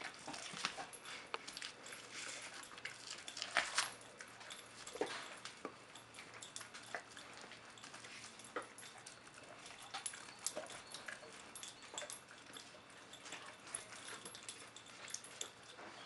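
Great Dane chewing and tearing at a raw sheep shoulder: wet gnawing with irregular sharp cracks and clicks of teeth on bone, loudest about four seconds in.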